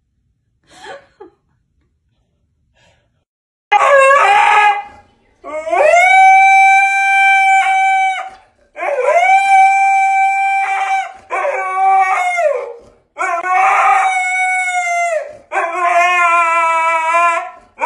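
A husky howling: six long howls in a row beginning about four seconds in, each rising at the start, held, then falling away, the last ones lower and wavering.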